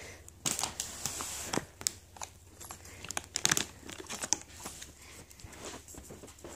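Cat playing with a small toy on a rug: irregular crinkling and rustling with scattered sharp clicks, busiest about three and a half seconds in.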